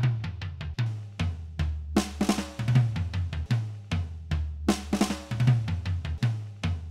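Recorded acoustic drum kit playing a steady groove of kick drum, snare and hi-hat. The playing gets busier and denser about two seconds in and again about five seconds in.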